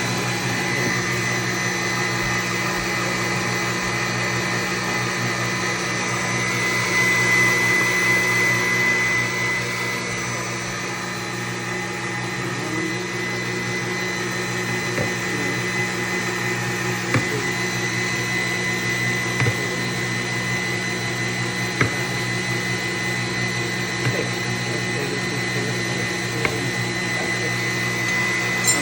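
Electric mixer motor running steadily, whipping the egg batter for a flourless roll cake. It is briefly louder about seven seconds in, with a few sharp clicks later on.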